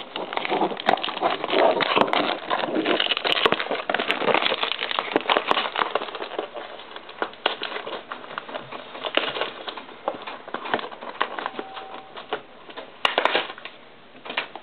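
Plastic wrap on a cardboard trading-card blaster box crinkling as the box is unwrapped and handled. The crackling is dense for the first six seconds or so, sparser after, with a fresh burst near the end.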